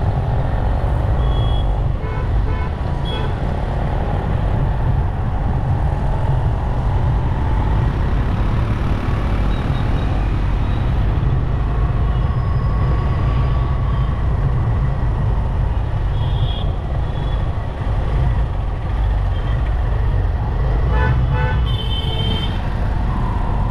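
City road traffic heard from a moving motorbike: a steady low rumble of engines and road noise, with vehicle horns tooting briefly several times, a quick run of toots near the start and a longer string of short beeps near the end.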